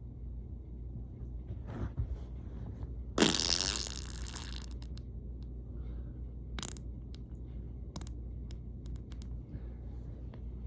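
A single loud, noisy fart about three seconds in, lasting a little over a second, over a steady low hum. A few faint short clicks follow later.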